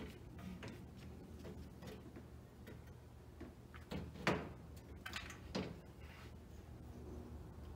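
Denso radiator being lowered and seated into its mounts: light scattered knocks, then a few louder clunks between about four and six seconds in, the loudest about four seconds in. A steady low hum runs underneath.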